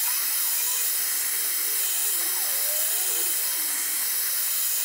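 Handheld gas blowtorch burning with a steady hiss, its flame heating aluminium clamped in a vise for joining with a filler rod instead of a welder.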